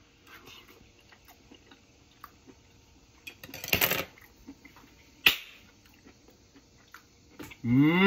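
A man chewing a mouthful of beef, with small soft clicks and ticks, a short rushing noise about halfway through and a sharp click soon after. Near the end comes a loud, pleased 'mmm' that rises in pitch and then holds.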